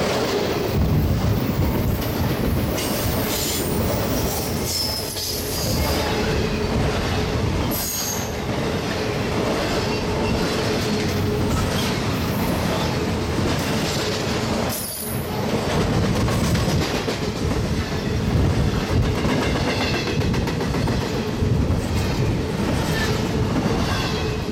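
Double-stack intermodal freight cars rolling past at speed: a steady, loud run of steel wheels on rail with knocks from the wheels and trucks, and high wheel squeals that come and go.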